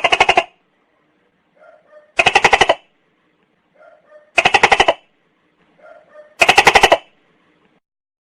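Tokay gecko calling: four loud calls about two seconds apart, each a quick rattle of about half a second, each preceded by a faint short double note.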